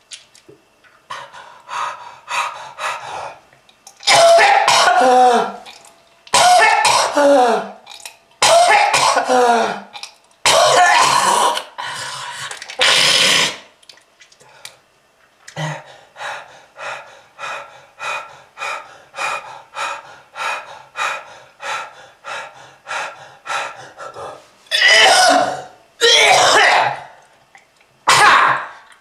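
A heavy smoker coughing hard in repeated fits: long hacking coughs, then a run of short quick coughs about two a second, then more loud hacks near the end.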